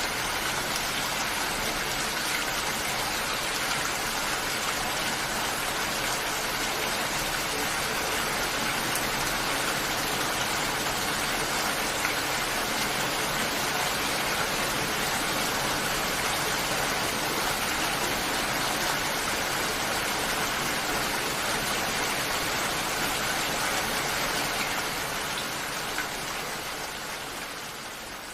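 Steady rain falling on plants and foliage, an even dense hiss that fades out over the last few seconds.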